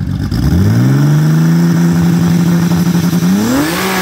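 Twin-turbo Vortec 4200 straight-six in a 1974 Datsun 260Z revving up, holding a steady pitch for a couple of seconds, then climbing again near the end.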